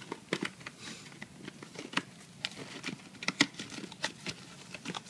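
Irregular clicks, taps and crinkling of a new motorcycle oil filter and its cardboard box being handled.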